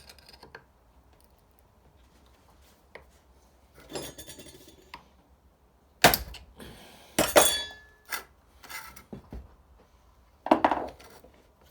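Metal clinks and knocks as an angle grinder's cutting disc and locking flange nut are handled and fitted. Sharp clinks, some with a short ring, come about four, six, seven and ten and a half seconds in, with quiet fiddling between.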